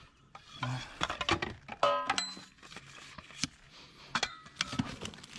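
Hard objects being rummaged through and handled in a pile of discarded junk: scattered clicks, knocks and clinks, with a metal piece ringing briefly about two seconds in.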